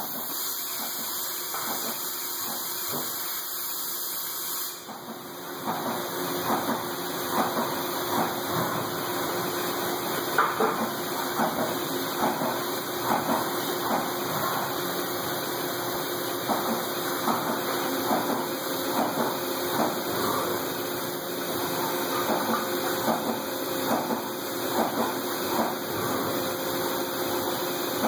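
Haas CNC mill cutting a metal plate with a small end mill under flood coolant: a steady spindle hum with two held tones, the hiss and splash of the coolant jet, and irregular sharp ticks from the cut. About five seconds in the sound dips briefly, then the ticks come more often.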